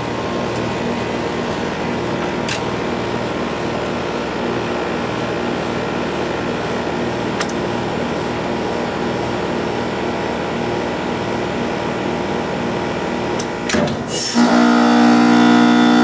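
Lennox heat pump outdoor unit running steadily in heat mode, its compressor and outdoor fan both going. About fourteen seconds in there are a few clicks, then the sound changes suddenly to a louder, steady hum with distinct tones as the unit is forced into defrost: the outdoor fan stops, the reversing valve shifts over and the compressor keeps running, now pumping hot gas into the frosted outdoor coil.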